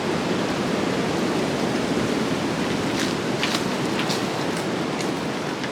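Wind blowing through the trees, a steady rushing noise, with a few short crackles about three to four seconds in.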